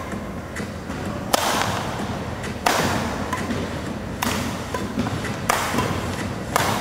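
Badminton rally: racket strings hitting a shuttlecock back and forth, five sharp hits about a second and a quarter apart, each echoing in the large sports hall.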